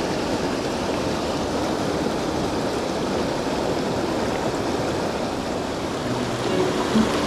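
Steady rush of a shallow, rocky stream flowing over stones. Faint music comes in near the end.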